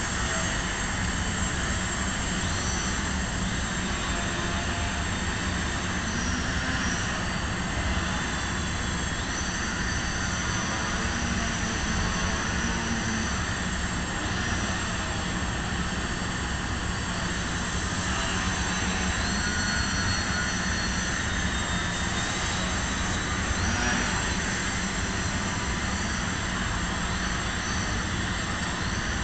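Small radio-controlled model airplane's electric motor and propeller whining in flight, the pitch stepping up and down several times as the throttle changes.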